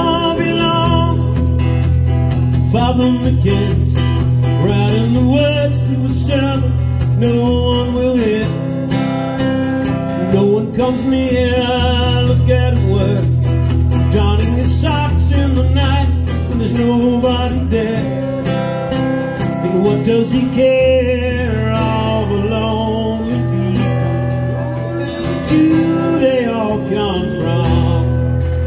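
Live small band playing: acoustic guitars strummed, electric bass and drums, with a flute played over them.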